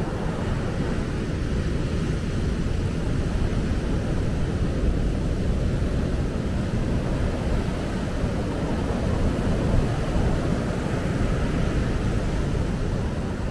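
Surf breaking and washing up a sandy beach: a steady rushing noise, heaviest in the low end.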